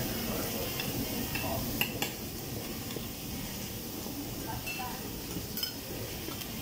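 Metal cooking utensils clinking against a teppanyaki griddle and a sauce bowl: a few sharp clinks about two seconds in and again near the end, over a steady hiss.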